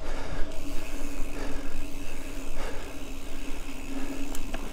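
Mountain bike rolling along a dirt forest road: steady tyre and riding noise, with a steady hum underneath and a faint click near the end.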